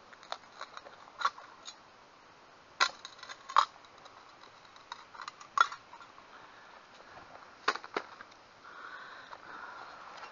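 Small hand spade digging into hard, stony soil: a series of short, sharp scrapes and crunches as the blade is pushed and levered into the ground, the loudest a little under three seconds in, about three and a half seconds in and about five and a half seconds in.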